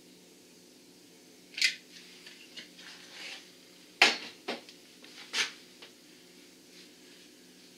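Clicks and knocks of a caulking gun and a threaded plastic fitting being handled at a plastic tote, a scattering of separate sharp clacks with the loudest about four seconds in.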